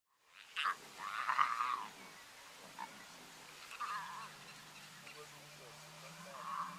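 Three short animal calls, the first and loudest about a second in, the others about four and six and a half seconds in, with a faint low steady hum joining about halfway through.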